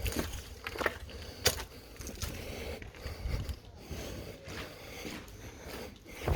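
Footsteps of someone walking, with irregular sharp clicks and knocks about once a second over low thumps.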